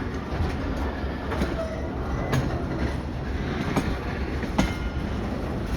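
Freight train rolling past with a steady low rumble, its wheels clicking irregularly over the rail joints.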